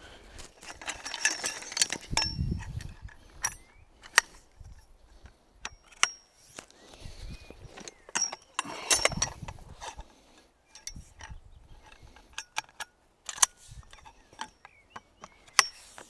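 Irregular sharp clicks and clatters of metal objects being handled, some ringing briefly, with two busier stretches of rattling.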